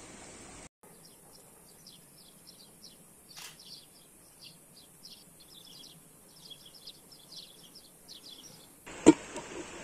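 Small birds chirping in woodland: many short, high notes in quick clusters. Near the end the sound cuts to a louder crackling background with one sharp, loud snap.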